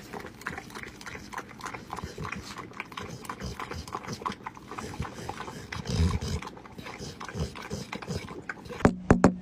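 A dog licking whipped cream from a paper pup cup: rapid, wet lapping strokes, with a few louder ones near the end.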